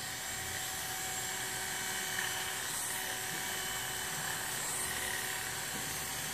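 Electric hair clippers running with a steady buzz as they cut and taper a mannequin's hair along the side of the head.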